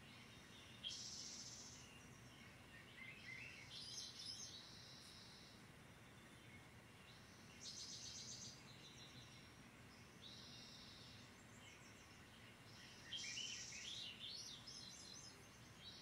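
Faint birdsong played through a TV's speakers: groups of chirps and calls come back about every six seconds, some as rapid runs of notes, over a low steady hum.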